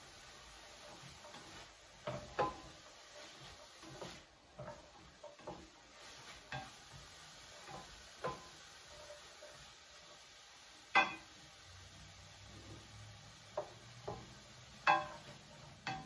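A metal spoon stirring chopped vegetables sautéing in a little oil in a stainless steel pan: scattered clinks and scrapes against the pan, with a few louder knocks past the middle and near the end, over a faint sizzle.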